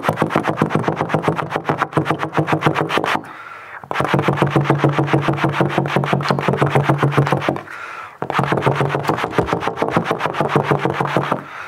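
Trombone holding one low note chopped into rapid, even pulses in imitation of a helicopter's rotor. It comes in three long runs with two short breaks for breath.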